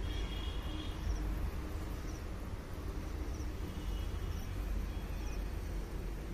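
Outdoor background: a steady low rumble with faint high chirps repeating about once a second.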